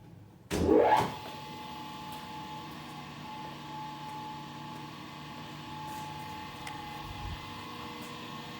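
Diehl DPG15 profile grinder's grinding-wheel spindle switched on about half a second in. It spins up with a quickly rising whine, then runs at speed with a steady whine and hum, without coolant.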